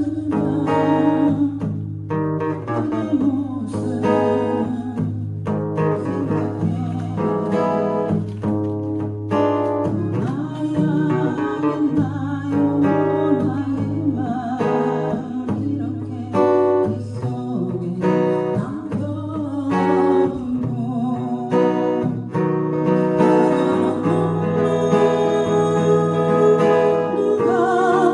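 Acoustic guitar played in a slow-rock strumming pattern with palm-muted strokes and bass-note runs, with a voice singing a melody over it.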